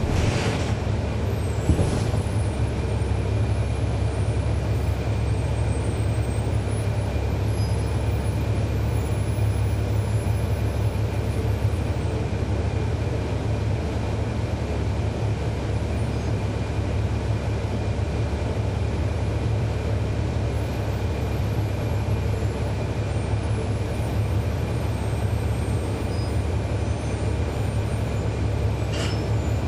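A 2011 NABI 40-SFW transit bus with a Cummins ISL9 diesel engine running, a steady low drone. There is a brief hiss of air at the start and another near the end.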